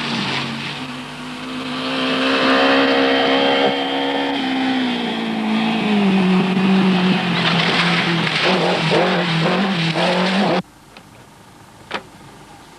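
1980s Group B rally car engine running hard at high revs on a rally stage. Its pitch climbs, drops about halfway through as it changes gear or lifts, then holds steady under a hiss of noise. The sound cuts off abruptly near the end, leaving a quieter background with one short knock.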